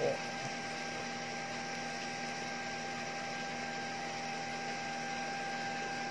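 A steady electrical hum with a constant high tone over a faint hiss.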